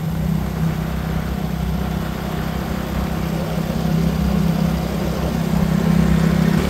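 Engine and road noise of a moving vehicle, heard from on board: a steady low hum with no breaks.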